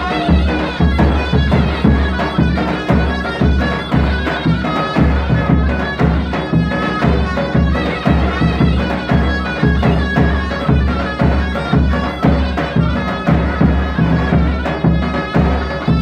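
Turkish folk dance music for the bar dance: a shrill, reedy wind-instrument melody over a steady, heavy drum beat.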